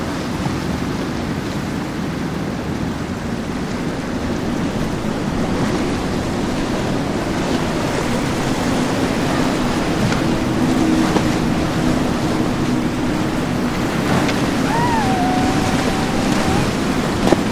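Rushing water and wave wash with wind buffeting the microphone, under a low hum of boat engines that grows stronger in the middle. Near the end a short whistle-like tone sounds for about two seconds.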